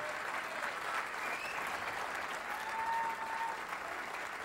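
Crowd in the bowling arena applauding steadily, with a few scattered shouts rising above the clapping.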